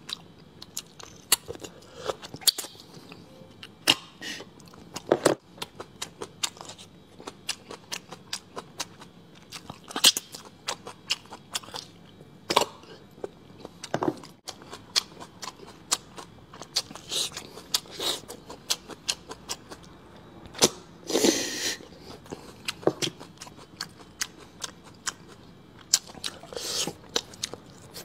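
A person chewing food close to the microphone: wet mouth clicks, lip smacks and soft crunches coming irregularly, with one louder, breathy noise about three quarters of the way through.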